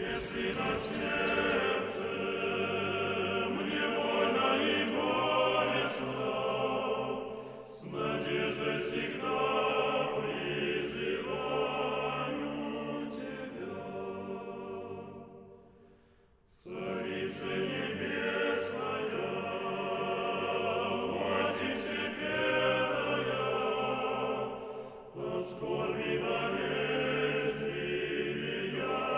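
A choir singing a slow chant. It dies away briefly about halfway through, then the singing starts again.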